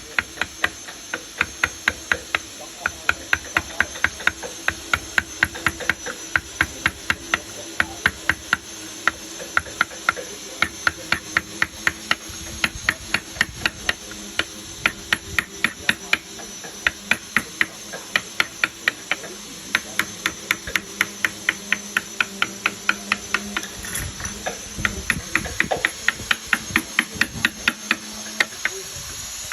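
A mallet tapping a carving chisel into wood in quick, even blows, about three a second, with a few short pauses. A steady high-pitched whine runs underneath.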